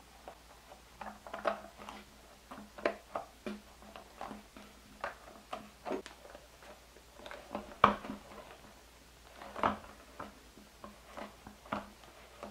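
Two-piece silicone cake-pop mold being fitted together and pressed shut by hand: irregular soft taps and clicks of silicone against silicone and the tabletop, with a sharper knock about eight seconds in.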